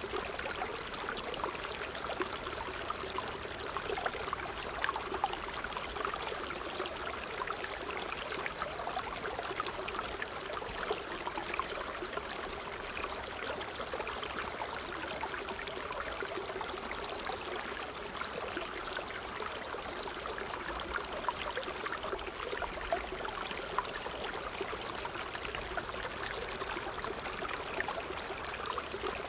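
Small creek running in a shallow cascade over rocks: a steady rush of water with constant small splashes and gurgles.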